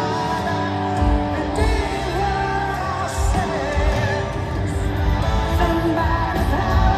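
Live rock band performing through a stadium PA: a lead singer over electric guitars, drums and keyboards, with a heavy low-end beat coming back in about a second in.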